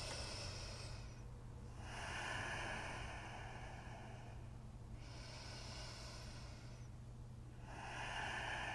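A person breathing slowly and audibly through the throat, ujjayi breath as used in Ashtanga yoga: long, even, hissing inhales and exhales of two to three seconds each, with short pauses between them.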